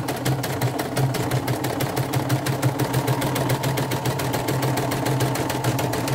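CNY portable computerized embroidery machine stitching out a design: a rapid, even clatter of needle strokes over a steady motor hum, running smoothly without hesitation.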